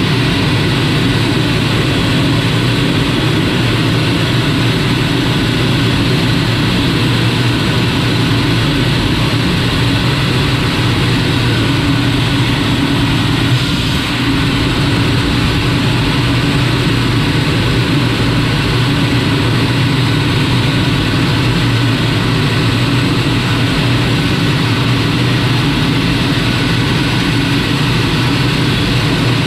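Canadair CT-133 Silver Star's Rolls-Royce Nene turbojet running steadily in flight, a continuous engine and airflow noise with a steady hum, dipping briefly about halfway through.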